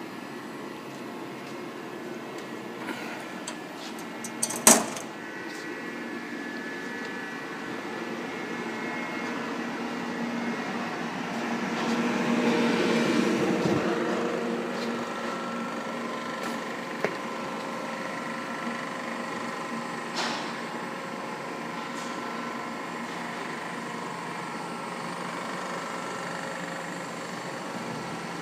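Miyano BNC-34S CNC lathe running: a steady machine whir with several held tones, a sharp clack about five seconds in, a swell in the running sound around the middle, and a few lighter clicks later.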